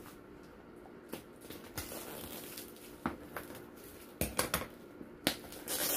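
Kitchen scissors snipping and scraping at the plastic wrap and tape on a cardboard box, with a handful of short clicks and crinkles and pauses between them. The crinkling gets louder near the end.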